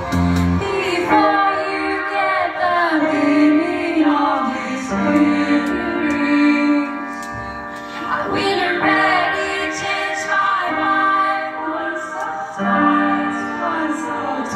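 A female singer performing live into a microphone over an electronic backing track, her voice gliding over sustained synth tones. The bass and beat drop out about a second in.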